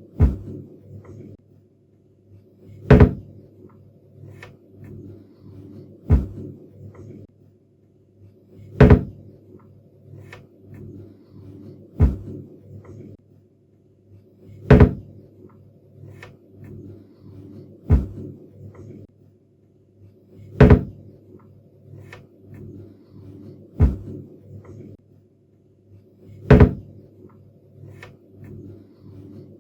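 Kitchen cabinet door shutting again and again, a sharp knock with a short ring about every three seconds, ten times in all. A faint low steady background runs between the knocks.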